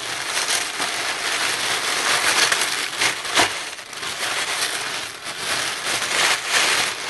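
Packaging crinkling and rustling as items are dug out of a subscription box, with a sharp crackle about three and a half seconds in.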